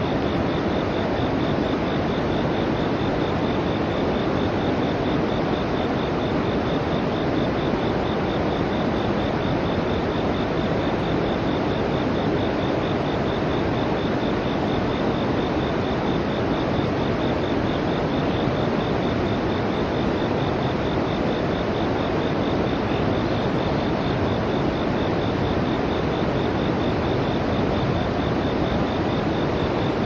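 Steady rush of river water flowing over a concrete weir, with a high, fast-pulsing insect trill over it.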